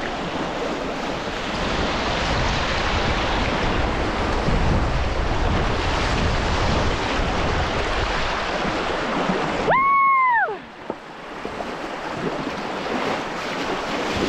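Rushing whitewater and wind noise on a camera riding on a kayak, a dense steady hiss. About ten seconds in, a brief high tone rises and falls, and then the water noise turns quieter.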